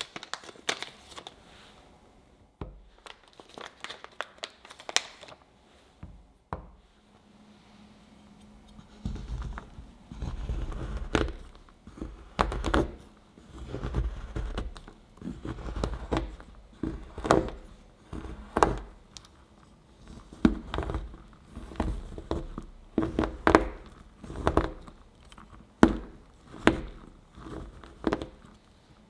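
The paper wrapper of a dark chocolate bar crinkles and tears as the bar is unwrapped. Then a chef's knife chops the bar on a cutting board in repeated strokes, roughly one a second, each a crunch of chocolate with a thud on the board.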